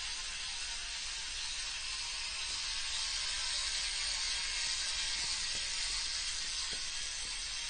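VG Sports 18-tooth single-speed bicycle freewheel with six short pawls, ticking so rapidly as the rear wheel spins that the clicks blur into a steady buzz. The uploader describes it as not as loud as a cassette hub.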